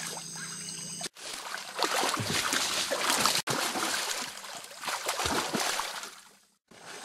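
Hooked electric eel thrashing at the surface, the water splashing and churning. The splashing breaks off abruptly about a second in and again halfway through, then fades out shortly before the end.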